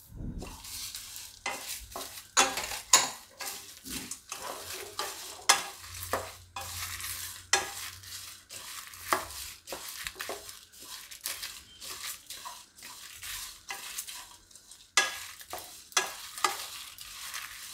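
Wooden spatula stirring whole spices and coconut dry-roasting in a kadai: irregular scraping and rustling strokes of the dry ingredients against the pan, which are being roasted until aromatic.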